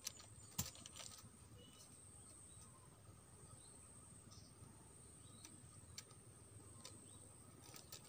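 Near silence: faint outdoor background with a steady thin high tone, broken by a few short sharp clicks and taps, the loudest about half a second in.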